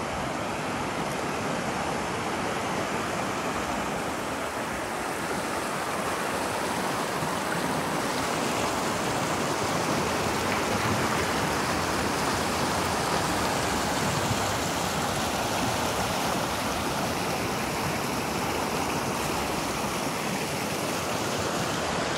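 Fast mountain creek rushing over rocks, running high with spring snowmelt: a steady, unbroken rush of water.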